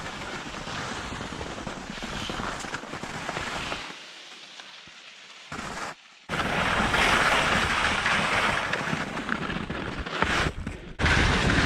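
Wind rushing over a body-worn camera's microphone during a downhill ski run, with skis hissing and scraping on the snow. It drops for a couple of seconds about four seconds in, cuts out briefly, then comes back louder.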